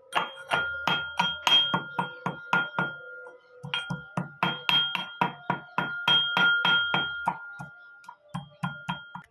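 Metal pestle pounding in a metal mortar, crushing ginger and tulsi leaves. The strikes come fast, about four a second, and each rings with a sustained metallic tone. They pause briefly about three seconds in, resume, and thin out to a few strikes near the end.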